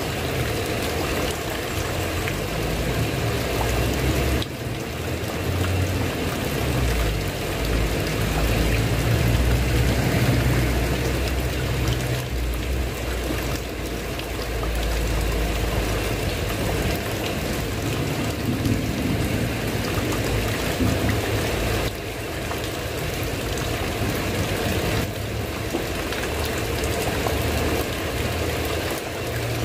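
Steady rain falling on a tiled roof, with water pouring and trickling off the roof edge. A low rumble rises and falls underneath.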